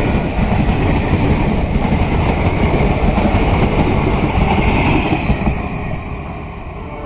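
Indian Railways passenger coaches rolling past close by, a loud rumble with a rapid clatter of wheels on the rails. After about five and a half seconds the sound fades steadily as the last coach goes by and the train draws away.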